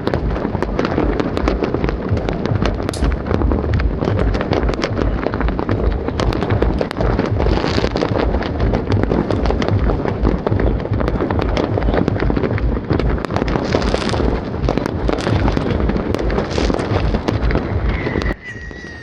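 Dense New Year's fireworks and firecrackers going off all at once, countless bangs and crackles overlapping into a continuous din. The barrage cuts off abruptly just before the end, leaving a short steady high tone.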